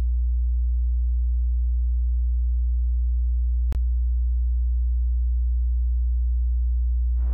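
A deep, steady synthesized bass tone, a pure hum held at one pitch and one level, with a single short click a little past halfway; it cuts off suddenly at the end.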